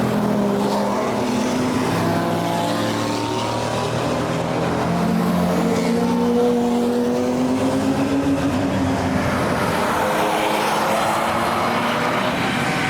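Race cars passing at speed, several engines overlapping, their notes rising and falling as they accelerate and lift through the corners.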